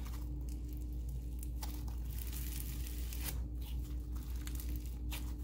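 Snow fizz slime being stretched and pulled apart by hand, giving a dense run of fine crackling and tearing as it rips. A low steady hum runs underneath.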